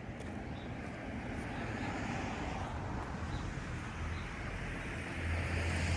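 Steady outdoor background rumble and hiss, with a low hum that grows louder near the end.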